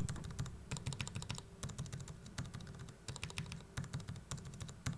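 Silenced mechanical keyboard switches being pressed rapidly, a dense run of soft, muted clicks, in a comparison of a Kailh Deep Sea silent linear switch with a modified Roselios linear.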